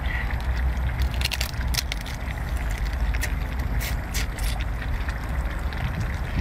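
Wet eating sounds of a cooked crab being bitten and sucked from the shell: a few sharp cracks and smacking clicks, over a steady low rumble of wind on the microphone.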